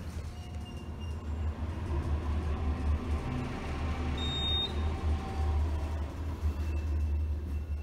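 Traction elevator car travelling downward: a steady low rumble and hum of the car in motion, with a short high tone about four seconds in.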